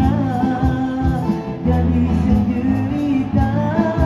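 A live busker band playing a song through a PA: singing into a microphone over guitar and keyboard, with a steady beat.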